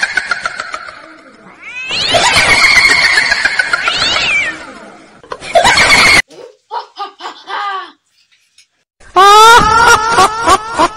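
Eerie wailing cries that glide up and down in pitch: a long falling wail, a drawn-out wavering cry, short broken calls, then after a brief silence a run of quick rising cries near the end.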